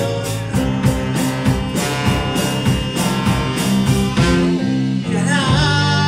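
Live rock band with a horn section playing: trombone and saxophone over electric bass and a drum kit, with a steady beat of cymbal strikes.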